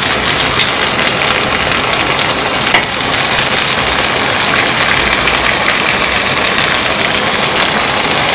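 Pepper steak of beef strips, peppers and onions simmering in its sauce in a frying pan: a steady sizzle with a few faint pops, as the sauce cooks down and thickens.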